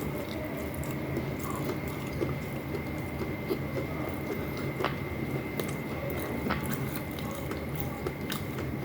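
Close-miked chewing and small wet mouth clicks from someone eating vinegar-stewed fish with rice. A steady low hum and a thin high tone sit underneath.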